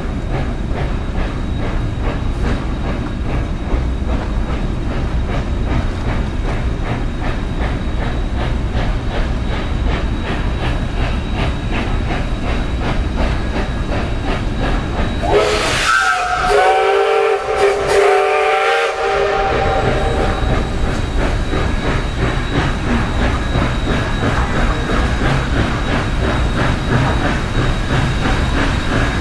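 Canadian National steam locomotive working as it approaches, its exhaust chuffing steadily over the rumble of the train. About halfway through it sounds its whistle, a chord of several notes held for about five seconds.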